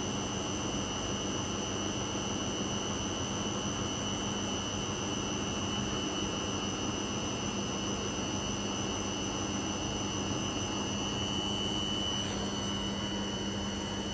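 Hoover front-loading washing machine running its spin cycle with the drum full of soap suds: a steady motor hum with a high whine that swells briefly near the end.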